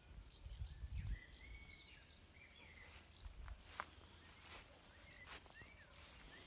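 Faint outdoor ambience with birds chirping: short, scattered calls through most of it. Soft footsteps and handling thuds in the first second, and a few sharp clicks.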